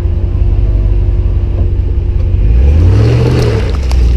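An off-road vehicle's engine runs at a steady drone, then revs up and eases back down about two-thirds of the way in, and starts rising again near the end, with a few sharp ticks and knocks over it.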